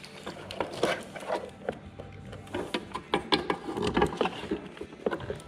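Hands fitting an LED headlight bulb into a snowmobile's plastic headlight housing: irregular clicks, taps and rubbing of plastic parts, over a faint steady low hum.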